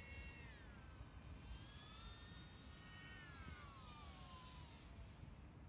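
Faint whine of a small FPV quadcopter's brushless motors, several tones together that dip and rise, then slide steadily down in pitch as the motors slow, fading out near the end.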